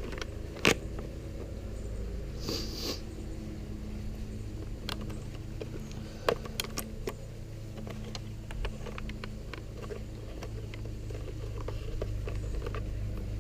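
Hands working wiring and plastic parts on a motorcycle: two sharp clicks, a brief rustle and a run of small ticks and taps, over a steady low hum.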